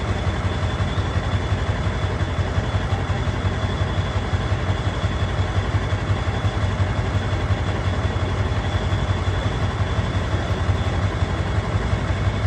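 Pickup truck's 7.3 engine idling steadily: an even low rumble that does not change in speed or load.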